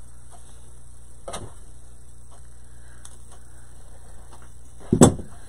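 Steady electrical hum under faint clicks and taps of craft pieces being handled, with a small knock about a second in and a sharp, louder knock near the end.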